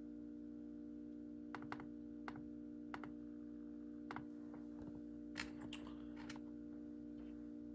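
Irregular clicks of typing on a computer keyboard, about a dozen keystrokes, some in quick pairs and the loudest a little past the middle, over a steady faint hum.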